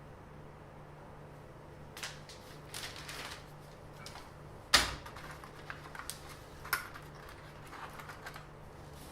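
Handling noises: scattered light clicks and knocks, with one sharp knock about five seconds in that is the loudest.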